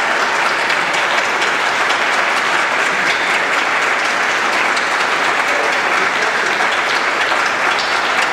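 Audience and band members applauding, a dense, steady clapping.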